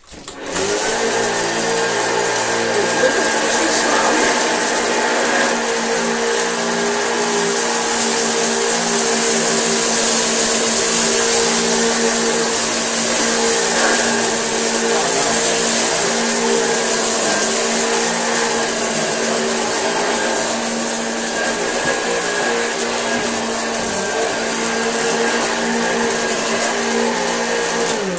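Vintage Hoover Junior upright vacuum cleaner switched on, running steadily with a motor whine and hiss as it picks up sprinkled rice with its beater-bar brush roll. It is switched off near the end and winds down.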